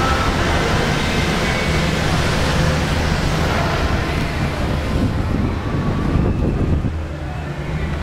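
Wind buffeting the microphone from an open sky-ride gondola: a steady rumbling hiss that thins in the upper register about five seconds in.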